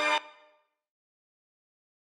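Background music cuts off abruptly a fraction of a second in, followed by complete silence.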